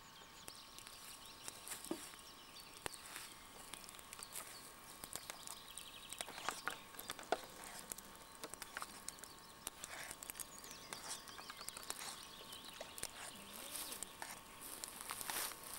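Faint, irregular crackles and clicks from a wood campfire with a pot of soup on it being stirred with a spoon; a few sharper clicks stand out from the rest.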